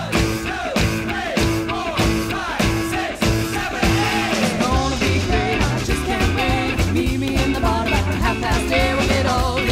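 Rock-and-roll song with singing over a steady drum beat.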